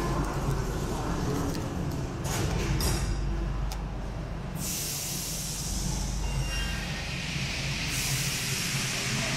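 Driverless rubber-tyred Paris Metro Line 1 train closing its doors with a few knocks, then a rising hiss and whine as it pulls out of the station.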